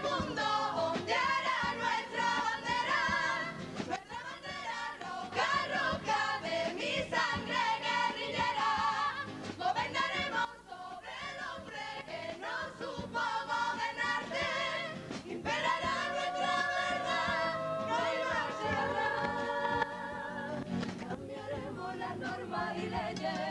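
Carnival comparsa chorus singing a song in several-part harmony with guitar accompaniment. The singing drops away briefly about ten seconds in, then comes back.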